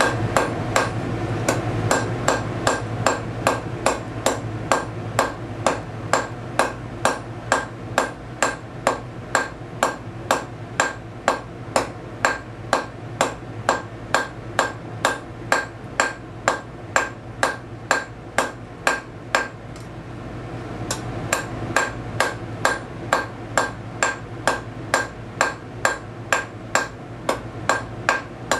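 Hand hammer striking a red-hot steel bar on an anvil at a steady rate of about two blows a second, each blow ringing briefly off the anvil, as a point is drawn out on the bar. A low steady hum runs underneath.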